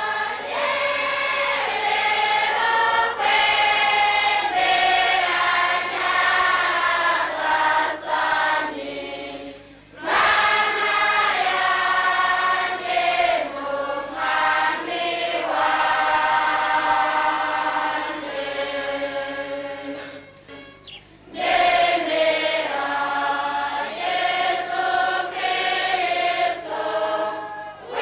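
A choir of many voices singing a hymn in long held phrases, with brief breaks about ten seconds in and again about twenty-one seconds in.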